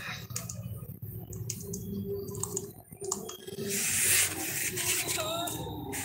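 A parakeet crunching food in its beak: irregular small clicks and crunches, with a brief rustling hiss about four seconds in and a short faint whistle-like note soon after.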